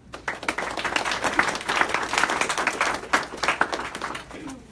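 Audience applauding: many hands clapping, starting just after a speaker introduction and dying away near the end.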